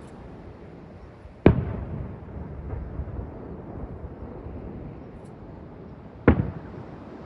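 Fireworks shells bursting overhead: two loud bangs about five seconds apart, the first trailing off in a rumbling echo.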